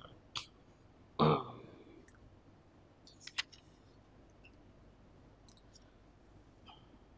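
A man's short cough or throat-clearing close to the microphone about a second in, with a few sharp clicks before it and a pair near three seconds in, then faint small clicks over quiet room tone.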